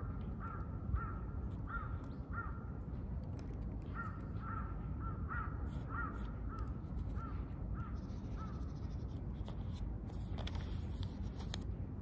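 A crow cawing repeatedly: short calls about every half second in two bouts, the second stopping about two-thirds of the way through, over a steady low background rumble.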